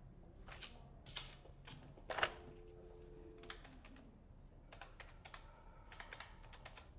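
Desk telephone: a few clicks as the handset is lifted, a dial tone for about a second, then a run of key presses with short touch-tone beeps as a number is dialled.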